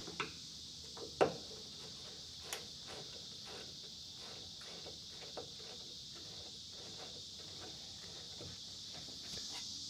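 A few light clicks and knocks of small tools and parts being handled, with one sharper knock about a second in, over a steady high chirring of insects.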